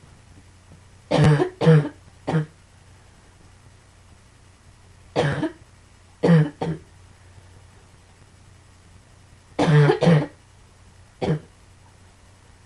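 A person with sarcoidosis coughing in three short fits, each of two or three sharp coughs, a few seconds apart.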